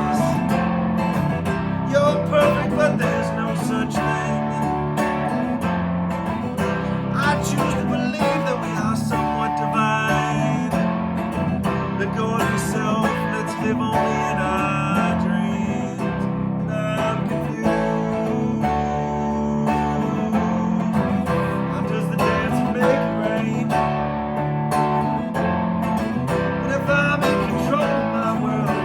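Mule Mavis guitar played as an instrumental passage, strummed chords and plucked notes ringing steadily with no singing.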